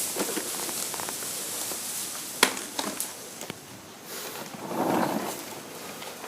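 Objects being handled: a few sharp knocks and clicks, then a brief rustle or scrape about five seconds in, over a steady hiss.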